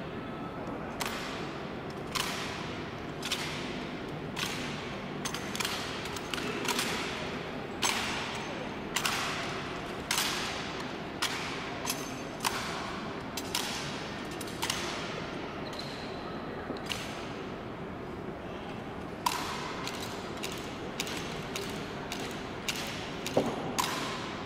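Honor guard rifle drill: sharp slaps and knocks as the rifles are handled in unison, roughly one a second, each echoing off the marble hall. After a pause, a few more strikes come near the end.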